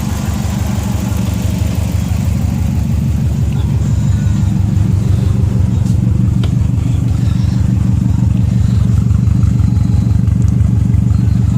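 2002 Subaru WRX's turbocharged flat-four engine running steadily at low speed, a low, evenly pulsing exhaust rumble that grows a little louder over the first few seconds.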